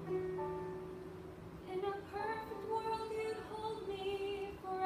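A girl singing a song solo over an instrumental backing track from a small portable speaker; held notes open the passage, and the melody moves more from about two seconds in.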